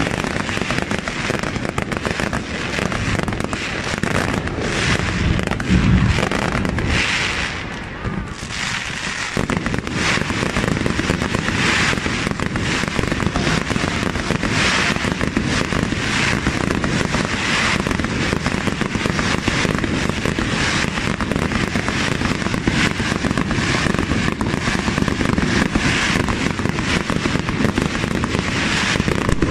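Aerial fireworks display at full pace: a loud, dense barrage of shell bursts going off in quick succession. There is a heavier boom about six seconds in and a brief lull around eight seconds.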